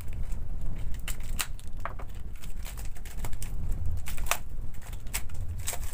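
Clear plastic wrapping crinkling as it is handled and pulled off a three-phase preventer (motor auto switch), in a run of sharp, irregular crackles.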